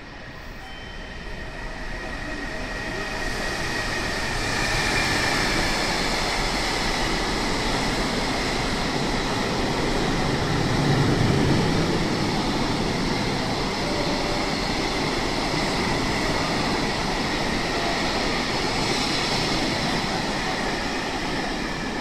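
Freight train hauled by a JR Freight EF210 'Momotaro' electric locomotive passing through the station at speed: a steady rush of wheels on rail that builds over the first few seconds and holds as the train goes by.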